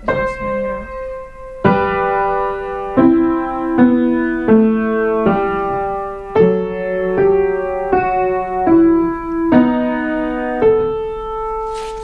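Upright piano played slowly in chords, one chord struck about every second, the last one held and left to ring near the end. A pupil practising a piece newly assigned to him.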